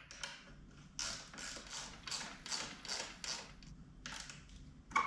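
A ratcheting mechanism clicking in a run of repeated strokes, about three a second, then a sharper click near the end.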